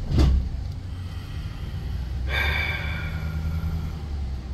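Pickup truck running slowly, heard from inside the cab as a steady low engine and road rumble. A brief loud puff of breath comes just after the start, and a short high-pitched sound rings for about a second around halfway.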